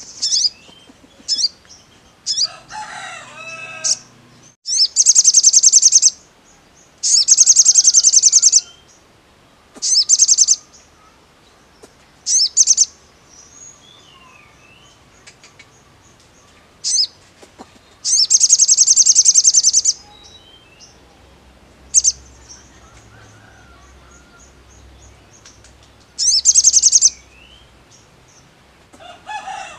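Male olive-backed sunbird singing: about a dozen loud bursts of very rapid, high trills, each half a second to two seconds long, with short quiet gaps between them. Fainter, lower chirps sound in the gaps.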